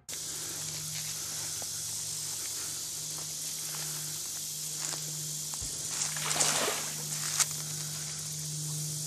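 Steady high-pitched hiss of outdoor swamp ambience over a low steady hum, with a brief louder rustling noise about six seconds in and a sharp click just after it.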